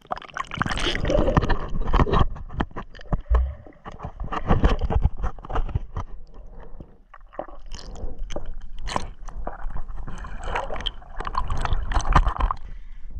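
Water sloshing and gurgling around a camera held underwater in a lake, with many irregular clicks and knocks.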